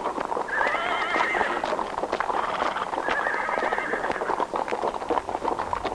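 Horses' hooves clip-clopping in many quick, irregular strikes, with a horse neighing twice: a wavering whinny about half a second in and another about three seconds in.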